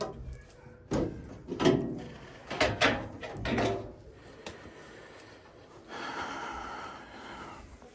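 Several short knocks and rattles of parts being handled during furnace work, then a steadier rasping sound for about two seconds near the end.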